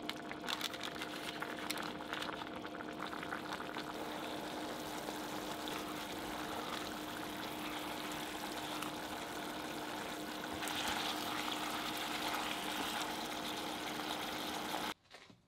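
Pork belly and daikon bubbling and sizzling as their soy-based simmering liquid is boiled down to a glaze, with a spatula clicking against the pot in the first few seconds over a steady faint hum. The bubbling grows louder about eleven seconds in and stops suddenly near the end.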